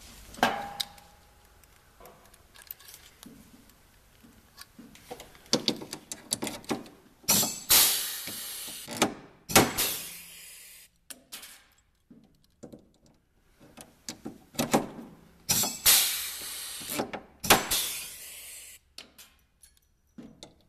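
Drill boring holes in the snowmobile's chassis tunnel support for new rivets, run in four short bursts of about a second and a half, in two pairs, with clicks and knocks of the tools being handled between.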